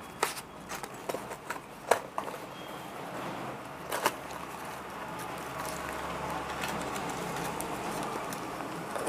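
Light clicks and taps of fishing-hook packets and boxes being handled, most of them in the first two seconds and one more about four seconds in, over a steady background hiss that grows a little louder after that.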